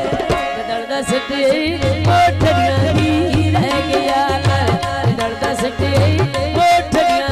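A woman singing a folk song into a microphone, accompanied by hand drums with a steady repeated beat.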